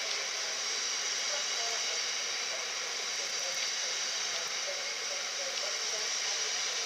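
Freight train's bogie hopper wagons rolling past at speed: a steady rushing hiss of steel wheels on rail, with no breaks or rhythm.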